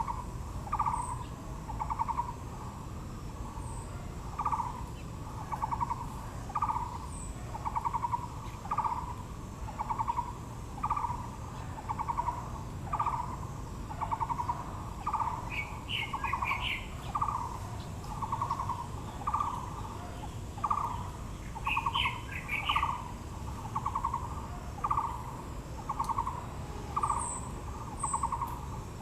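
A bird repeating a short, low, trilled note steadily, about one to two a second, with brief bursts of higher chirping from another bird twice in the middle.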